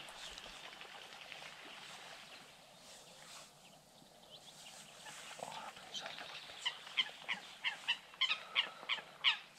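A bird calling in a quick series of short, falling notes, about three a second, starting about six seconds in and growing louder.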